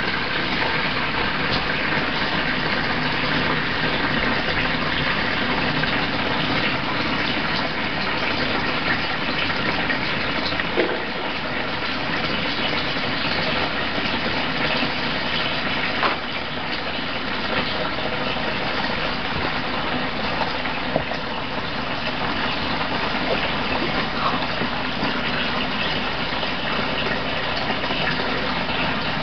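Water gushing steadily into a doll house as it floods, a continuous rushing pour with a few faint clicks.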